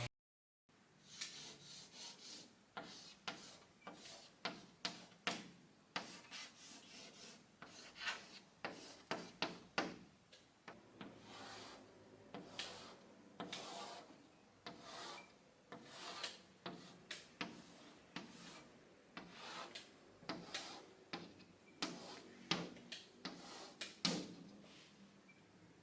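Foley sound effect being performed: a long series of short, irregular scraping strokes, roughly one to three a second, some louder than others.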